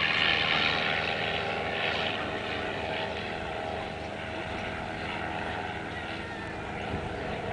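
Sopwith Triplane's rotary engine droning steadily as the biplane-era fighter flies past overhead. It is loudest at the start and slowly fades as it moves away.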